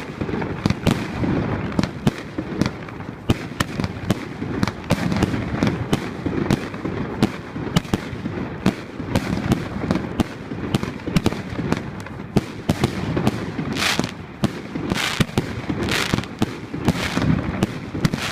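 Dense fireworks going off without pause: a steady barrage of bangs and crackles over a low rumble. Near the end comes a run of longer hissing bursts about once a second.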